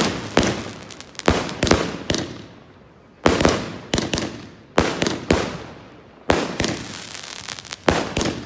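A 49-shot variegated peony firework cake firing its shots: a string of sharp bangs at an irregular pace of one or two a second, each trailing off over about a second.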